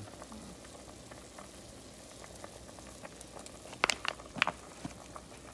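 Pot of chicken vegetable soup at a boil, bubbling steadily and faintly, with a few sharp clicks about four seconds in.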